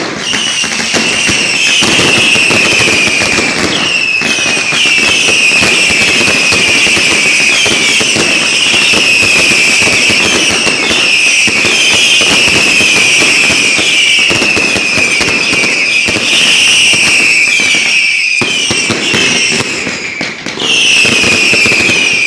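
Loud daytime fireworks battery going off: a dense, continuous rattle of bangs, with whistling fireworks over it about once a second, each whistle falling slightly in pitch.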